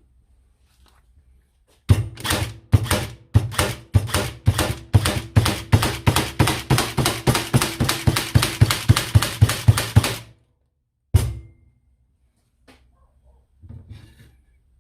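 Ryobi R18ST50 18V cordless crown stapler firing staples in quick succession, a run of about thirty sharp clacks that speed up to about four a second, then one more a second later.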